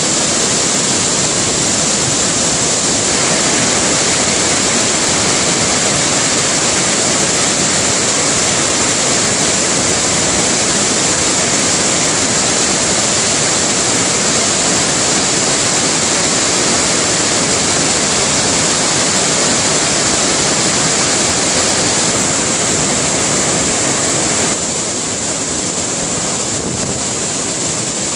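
Large waterfall in flood: heavy white water pouring over rock in a steady, loud rush. It drops a little in level for the last few seconds.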